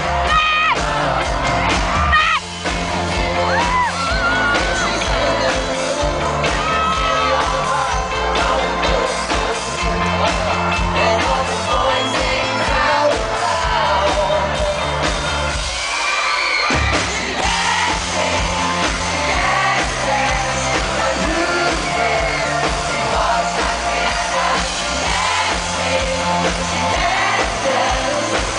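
Pop band playing live over a PA, with sung vocals over a driving beat, heard from within the audience. About halfway through the bass and beat drop out for a moment, then come back in.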